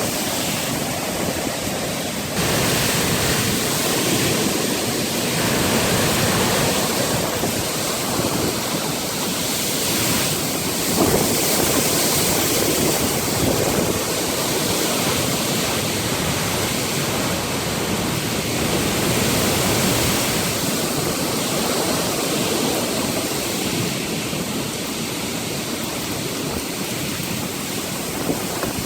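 Severe storm winds blowing hard: a loud, steady rushing noise that swells and eases in gusts.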